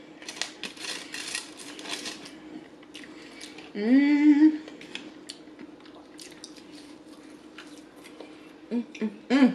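Close-miked handling of aluminium foil and French fries, a dense run of crinkles and clicks for the first two seconds or so. About four seconds in comes a loud hummed "mmm" that rises in pitch, and near the end three short hummed sounds. A faint steady hum runs underneath.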